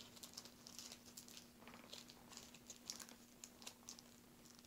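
Faint crinkling and small clicks of plastic wrapping and tape being picked at by fingers on a sealed pack of Bakugan cards. A faint steady hum runs underneath.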